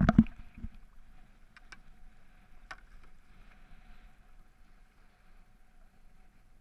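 A few loud knocks right at the start, then the faint steady wash of an outrigger canoe being paddled through the water, with a few sharp clicks between about one and a half and three seconds in.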